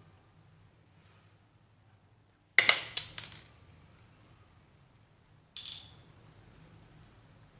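A hard plastic toy animal clinks and taps against a glass bowl as it is set down: a quick cluster of sharp clicks, then one shorter clink a few seconds later.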